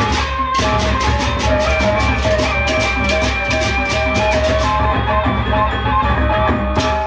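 Sasak gendang beleq ensemble playing a gending: large barrel drums (gendang beleq) beaten under a ringing gong-chime melody, with dense bright high percussion strokes that drop out briefly about five seconds in.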